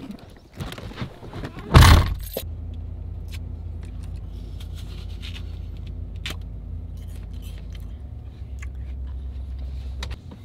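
Ford F-150 pickup's engine cranks and catches with a short loud burst about two seconds in, then idles steadily. Door and key handling sounds come before the start, and scattered small clicks of apple bites sound over the idle.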